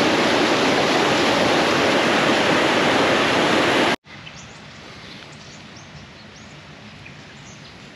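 Woolshed Falls cascade: white water rushing steadily and loudly over rocks. About four seconds in it cuts off abruptly to a much quieter outdoor background with a few faint high chirps.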